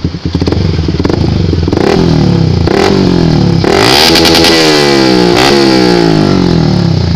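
Yamaha YZF-R15's single-cylinder engine running through an aftermarket Akrapovic GP Lorenzo slip-on exhaust. It idles for about two seconds, then is revved several times with its pitch rising and falling, highest around the middle, and settles back toward idle near the end.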